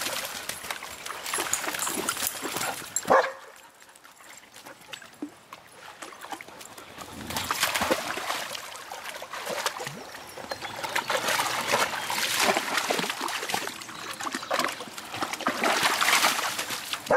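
Standard poodles splashing and wading through shallow river water in bouts, with a quieter spell in between. A single sharp dog bark about three seconds in.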